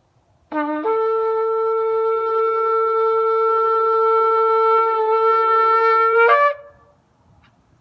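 A shofar sounded in one long blast: a brief low note leaps up to a higher note that is held steady for about six seconds, rising sharply just before it cuts off.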